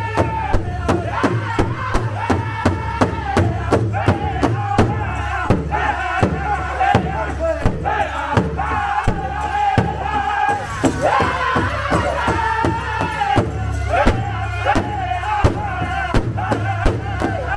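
A powwow drum group singing together in high voices over a large bass powwow drum struck in unison by several drummers, a steady beat of about three strikes a second.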